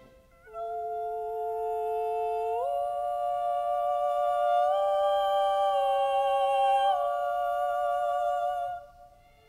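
Two women's voices holding long, smooth notes in close harmony with no audible accompaniment, the pitches stepping up together just under three seconds in and shifting again around five and seven seconds, then stopping abruptly near the end.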